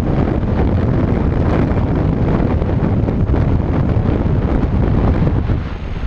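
Wind rushing over the microphone of a paraglider pilot's camera in flight: a loud, steady, low rumbling rush, easing briefly near the end.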